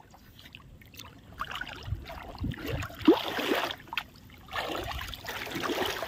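Water sloshing and splashing in irregular swishes, with dull low thuds.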